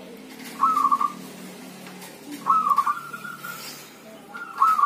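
Zebra dove (perkutut) cooing its song, a short stuttering coo phrase given three times about two seconds apart.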